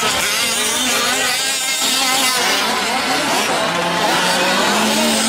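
Several 1/5-scale gas RC off-road trucks racing, their small two-stroke engines revving up and down in overlapping, constantly changing pitches; near the end one engine holds a steadier, slowly rising note.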